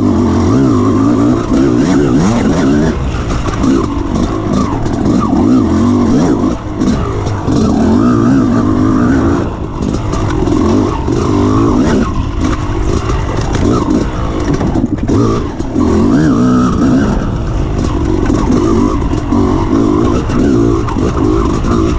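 Off-road motorcycle engine running hard, revving up and down with the throttle and easing off briefly every few seconds.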